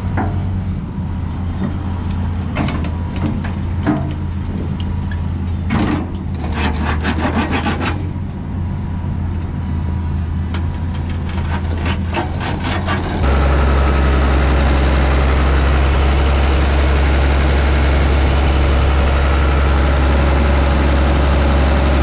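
Case CX210B hydraulic excavator's diesel engine running steadily while the machine works its boom, arm and bucket, with bursts of rapid metallic clicking and clanking from the moving machine. About 13 seconds in it cuts to a louder, even idle of the Isuzu diesel, heard close at the open engine bay.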